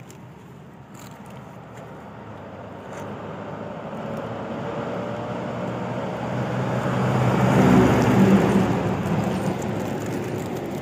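A motor vehicle passing by: its engine grows steadily louder, peaks about eight seconds in, then fades.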